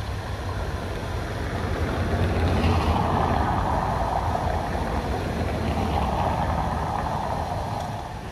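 Steady low engine rumble, with a rushing noise that swells and fades twice, about three and six seconds in.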